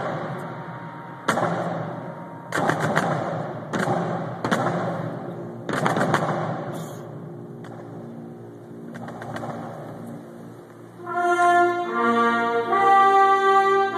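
A series of loud, sudden bangs ringing out with long echoes in a large arena, about five of them in the first six seconds. About eleven seconds in, a military brass band starts playing a melody in sustained notes.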